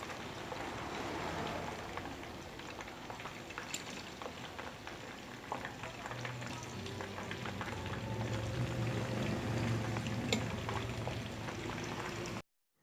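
Breaded chicken deep-frying in a pan of hot oil: a steady sizzle and crackle with scattered small pops. A low hum joins about halfway, and the sound cuts off suddenly just before the end.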